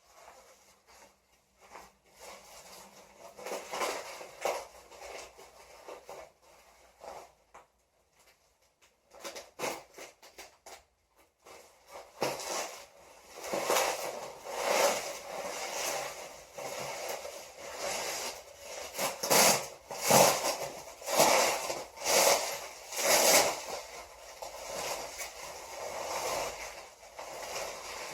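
Packing material crinkling and rustling in irregular bursts as planters are unwrapped by hand, sparse at first and then busy and louder for the second half.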